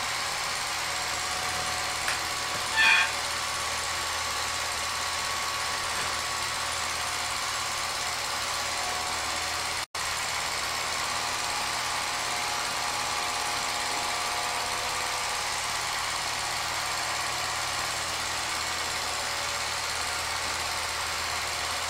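Home-movie film projector running, a steady mechanical clatter. A short, louder, higher sound breaks in about three seconds in, and the sound cuts out for an instant near the middle.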